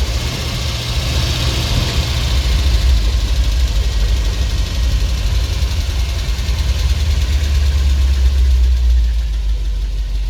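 ZIL truck engine running, a loud steady low rumble.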